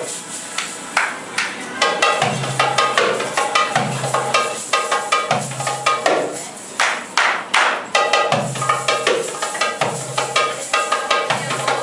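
Darbuka drumming. Deep doum bass strokes come about every one and a half seconds among quick, crisp tek and ka strikes, with a fast flurry of strokes just past the middle.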